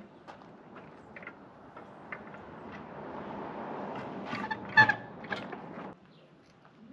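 Steel parts of a half-track's track and bogie being handled, with scattered light clinks and one loud ringing metal clank near five seconds in. Under it a rising rush of noise stops abruptly about six seconds in.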